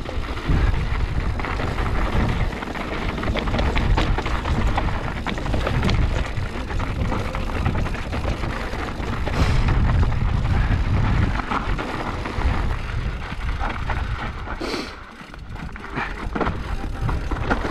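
Mountain bike riding a rough downhill trail, heard from the bike or rider: steady rushing wind and tyre noise with many small rattles and knocks, easing off briefly about fifteen seconds in.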